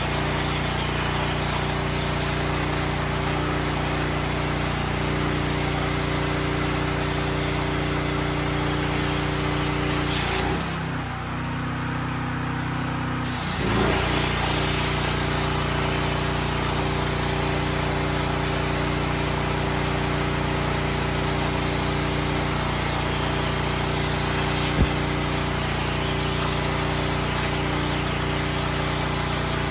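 CNC plasma cutter cutting: a steady hiss of the arc and air over the machine's hum. The arc stops about a third of the way in for about three seconds, then starts again, and a single sharp click comes near the end.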